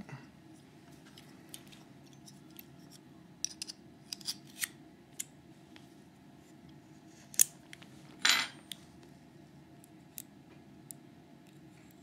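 Light metallic clicks and taps as the partly disassembled Metal X6V lock cylinder is handled and worked on. A sharper click comes about seven seconds in, followed by a short scrape.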